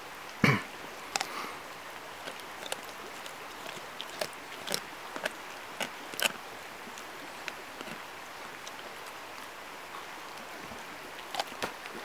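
A dog chewing a raw kokanee salmon: irregular sharp crunches and clicks of teeth on fish bone and flesh, the loudest about half a second in, over a steady faint hiss.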